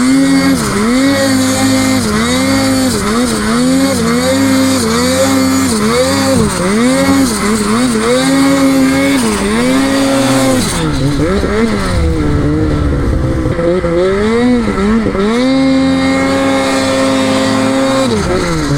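Snowmobile engine revving up and down with the throttle, its pitch rising and falling every second or so, then held high and steady for a couple of seconds near the end before it drops.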